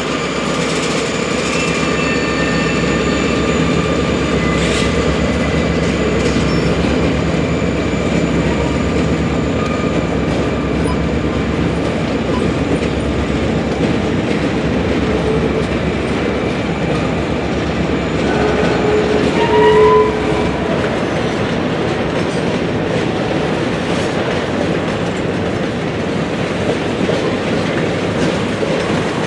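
Railroad cars rolling past, wheels clicking over the rail joints under a steady rumble, with thin high ringing tones over it and a brief louder tone about twenty seconds in.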